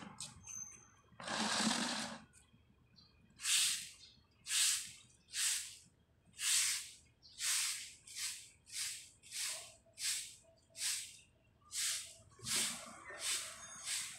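A soft straw broom sweeping a paved street: a series of short, rhythmic swishes, about one a second, after a longer first stroke.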